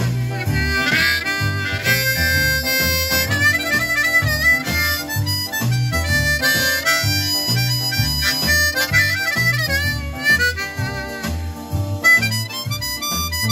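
Harmonica played with cupped hands, a run of bluesy bent and wavering notes, over a blues backing with a steady bass beat.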